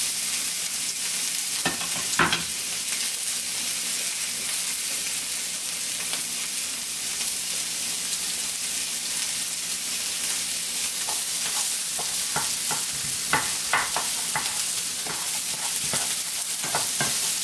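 Soyrizo and chopped onion sizzling steadily in a nonstick frying pan, a constant high hiss of frying. A few light knocks come about two seconds in, and a run of wooden-spoon stirring knocks comes in the last several seconds.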